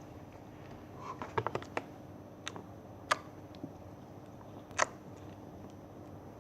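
Slime being handled and squeezed, giving short sticky clicks and pops: a quick run of them about a second in, then a few single pops.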